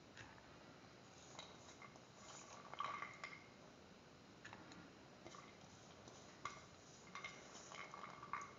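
Faint, scattered clinks and taps of soaked split chickpeas and utensils against a steel mixer-grinder jar as the chickpeas are put in, the loudest with a short metallic ring about three seconds in.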